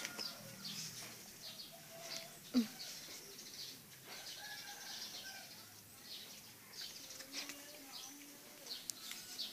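Quiet outdoor ambience with faint, scattered chirps from small birds, and one brief voice-like sound about two and a half seconds in.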